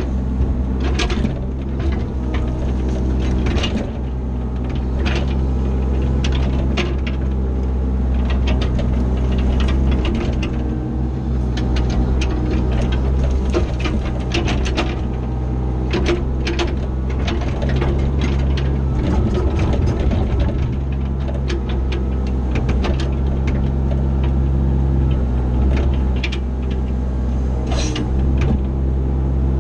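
Cat 304 CR mini excavator's diesel engine running steadily while it digs and moves dirt, with frequent clanks and knocks throughout.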